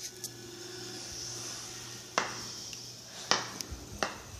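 Small rubber bouncy ball from a baseball's core hitting a hard floor: three sharp bounces, the gaps between them shortening as the ball settles.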